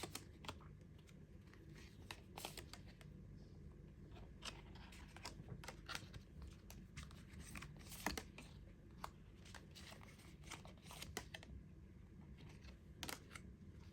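Faint, scattered clicks and rustles of tarot cards being handled and laid down on a table.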